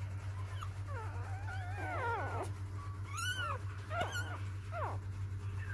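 Four-day-old newborn puppies whimpering and squealing: a string of short, high cries that rise and fall in pitch, over a steady low hum.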